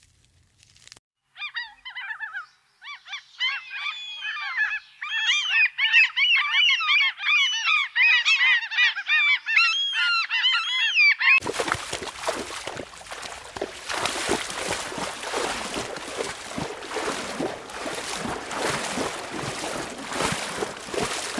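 A flock of black-headed gulls calling, many harsh overlapping calls at once. About halfway through the calls stop suddenly and give way to a steady rushing noise.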